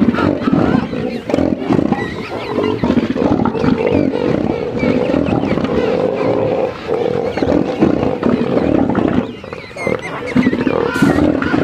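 Bull southern elephant seals giving loud, throaty, pulsing threat calls as two of them rear up face to face in a dominance standoff. The calls run almost without a break, with short pauses about two-thirds of the way through and again a little later.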